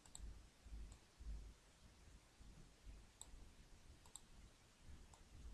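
Faint computer mouse button clicks, about half a dozen scattered through the quiet, a couple coming in quick pairs, over a faint low room rumble.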